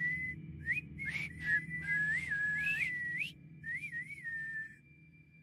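Human whistling: a slow, wavering tune that stays near one pitch with short rising and falling swoops, stopping about five seconds in. A low steady drone runs underneath.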